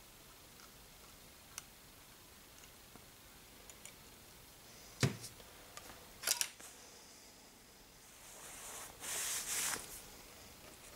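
Small handling sounds of plastic model-kit assembly: a few faint clicks, then a sharper knock about five seconds in as the plastic glue bottle is set down on the cutting mat, a quick double click just after, and a brief rustle near the end.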